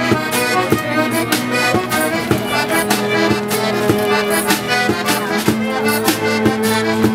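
Piano accordion, violins and a strummed acoustic guitar playing a lively folk tune together, with a steady beat of about two strokes a second.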